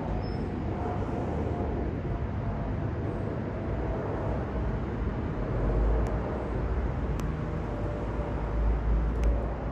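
Distant jet rumble of a Boeing 777-200ER's Rolls-Royce Trent engines passing overhead: a steady noisy drone with a faint tone slowly dropping in pitch. Low wind buffets on the microphone swell about halfway through and again near the end.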